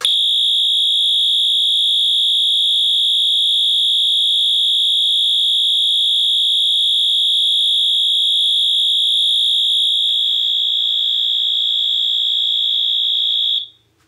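Wheelock MT-24-LSM fire alarm horn sounding its default electromechanical continuous tone: a very loud, steady, high-pitched tone that holds for about thirteen seconds and then cuts off suddenly near the end.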